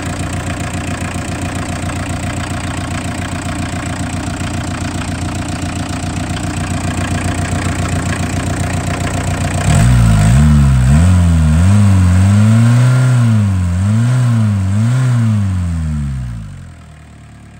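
1981 Volkswagen Rabbit pickup's four-cylinder diesel engine idling steadily, then revved up and down several times from about ten seconds in, before the revs fall away and the sound drops near the end.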